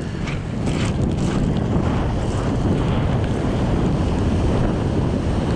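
Strong wind buffeting the microphone, with ocean surf washing in behind it as a steady rumble.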